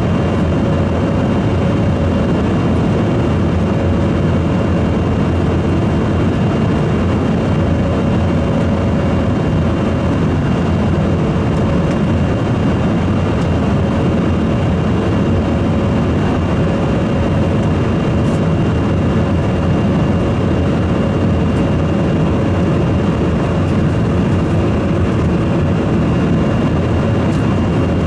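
Steady cabin noise of an Embraer 175 jetliner in flight, heard from a window seat by the engine: the rush of air and the drone of its GE CF34 turbofan, with a thin steady whine above it.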